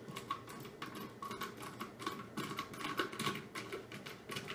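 Hand screwdriver driving a wood screw into a pine board: a run of irregular clicks and creaks, a few louder around the middle.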